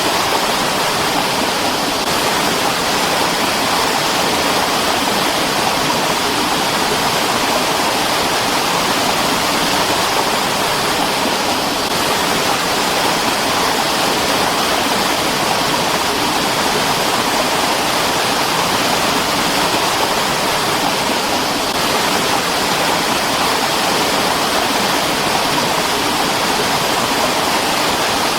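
Mountain stream running over rocks: a steady, dense rush of water.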